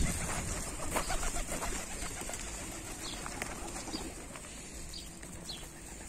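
Feral rock pigeons cooing low in the middle, with scattered crunching steps on gravel in the first couple of seconds.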